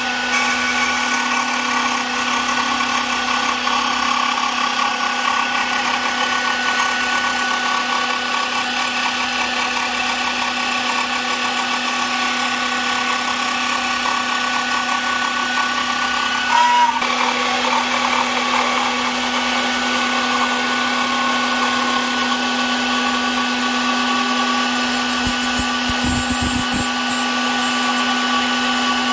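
A 5-axis CNC router's spindle runs steadily with a constant whine while it trims a carbon fibre helmet. There is a brief louder catch about 17 seconds in.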